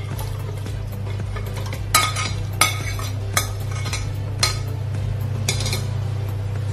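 Steel ladle scraping and clinking against a plate and the rim of an aluminium pressure cooker as cooked trotters are pushed off the plate into the broth. There are about five sharp clinks over a steady low hum.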